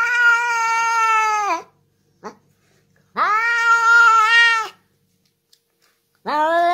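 A cat meowing in long, drawn-out yowls: three held calls of about a second and a half each. The first is already sounding at the start, the second comes about three seconds in, and the third begins near the end.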